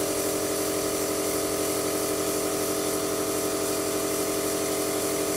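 Small airbrush compressor running steadily, a motor hum with a hiss of air.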